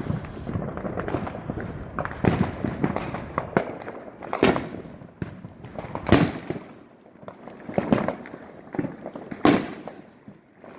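Neighbourhood fireworks going off: a rapid crackle of firecrackers with louder single bangs every second or two, the biggest about four, six and nine and a half seconds in.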